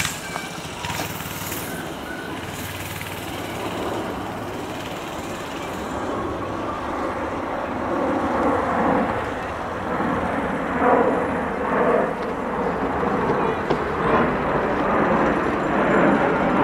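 Minibike's small engine running, with several louder swells of revving in the second half.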